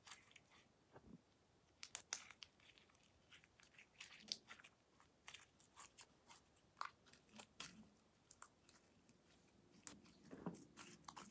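Faint sticky clicks and crackles of homemade slime being kneaded and stretched between the hands, irregular and scattered.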